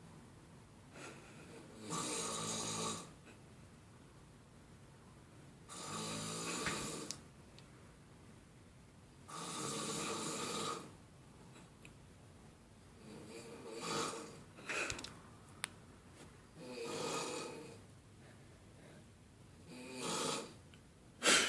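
A sleeping person snoring very loudly: about six long snores, roughly one every three to four seconds, each lasting about a second. A short sharp sound comes just before the end.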